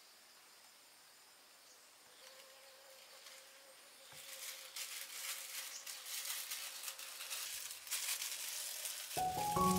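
Faint insects at first. From about four seconds in, thin plastic gloves crinkle and rustle as they are pulled onto the hands. Music comes in just before the end.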